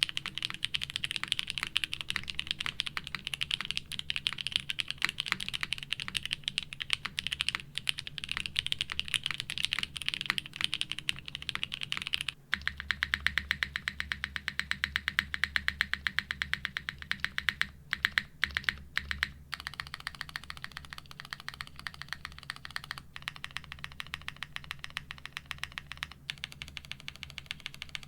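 Mechanical keyboard typing: first the Geonworks F2-84 being typed on at a steady quick pace. About twelve seconds in it changes to the Geonworks Glare TKL, a foamless board with a POM plate and hand-lubed Geon Black linear switches on its modifier keys, with keys pressed in fast, evenly spaced strokes.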